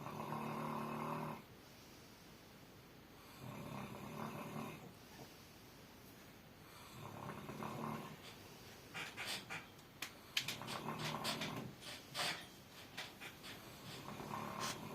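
Snoring: five long, buzzy snores about every three and a half seconds. Scattered sharp clicks in the second half.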